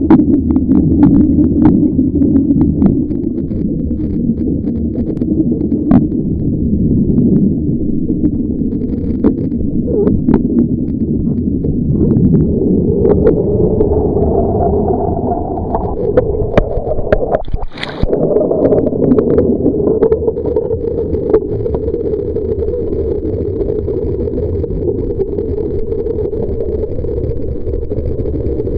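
Steady low rushing and bubbling of air and water around a camera held underwater during a surfacing underwater scooter ride, with scattered small clicks and knocks throughout.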